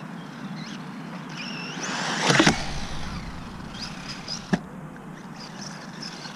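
Electric 1/14 RC truggy running on a 2S battery: its motor whines up as it accelerates, a loud rush and thump comes about two and a half seconds in as it takes off, and a single sharp knock about four and a half seconds in as it lands.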